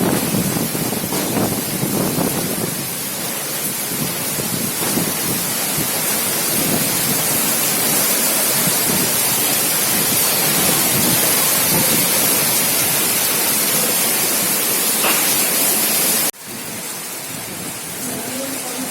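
Heavy rain pouring down, a loud, steady hiss. About sixteen seconds in it drops suddenly to a quieter rain sound.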